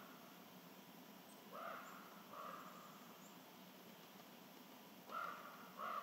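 Crow cawing: two pairs of short, harsh caws, one pair about two seconds in and another near the end, over a faint outdoor background.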